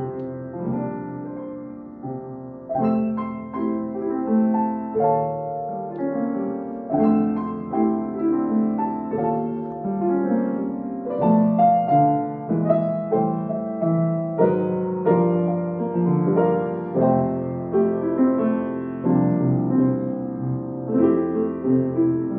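Piano music: unhurried notes and chords struck about every second and left to ring.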